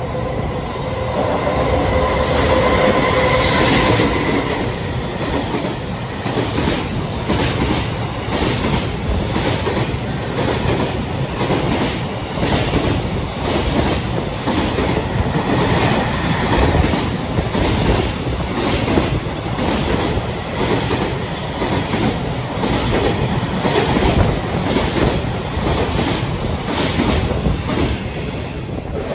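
Long freight train of container wagons passing through a station at speed. The locomotive comes by first with a steady tone and is loudest over the first few seconds. Then comes a continuous rumble and a rhythmic clatter of wagon wheels over rail joints, dropping off near the end as the last wagon goes by.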